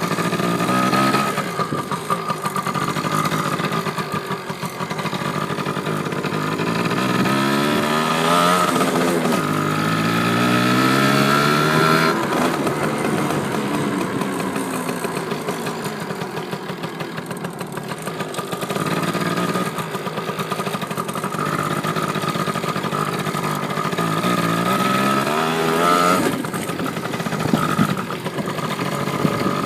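Dirt bike engine running hard, its pitch climbing and dropping again and again as it revs up and eases off.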